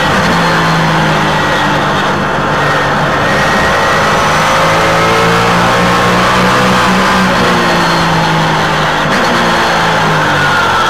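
Onboard sound of a Trans Am Series race car's engine running hard at high revs. The pitch holds fairly steady for most of the stretch, then shifts near the end.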